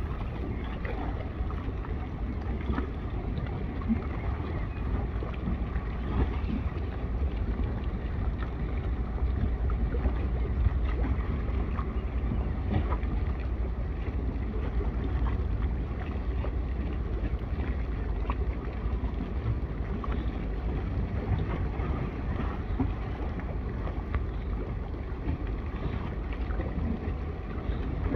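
Waterside harbour ambience: wind rumbling steadily on the microphone over a low drone, swelling slightly midway.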